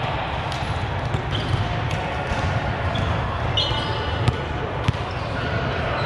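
A volleyball bounced a few times on a hard gym court, with short sneaker squeaks, over the steady din of a large indoor hall.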